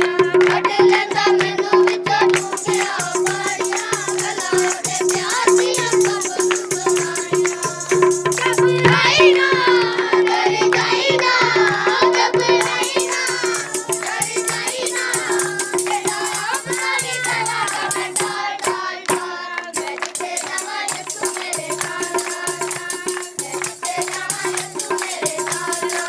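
Devotional folk song sung over tabla drums and a chimta, the steel tongs' jingles rattling in a quick steady rhythm over the drum strokes.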